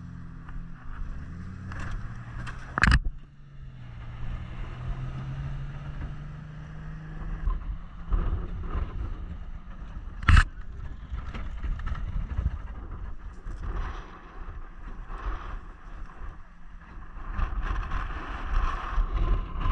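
A truck driving with its engine running steadily, giving way to a rougher rumble of the vehicle over the ground after about seven seconds. Two sharp knocks come about three and ten seconds in.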